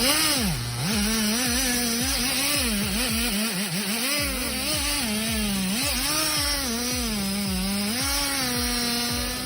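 Chainsaw cutting into wood, its engine pitch repeatedly sagging under load and picking up again, with the hiss of the chain cutting.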